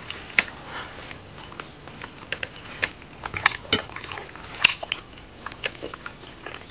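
A man chewing and smacking his lips close to the microphone while eating pork curry and rice by hand: a string of short, irregular mouth clicks and smacks.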